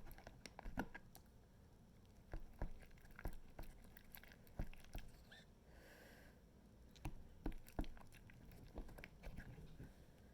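Sticky glue slime being mixed with borax activator, giving faint, irregular wet clicks and squishes as it sticks and pulls apart.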